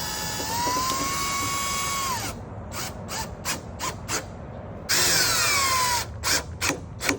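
Cordless drill/driver running screws in to fasten a concealed door closer: one run of about two seconds and a shorter one near the end whose pitch falls as the screw seats. Between and after the runs come a series of single sharp clicks.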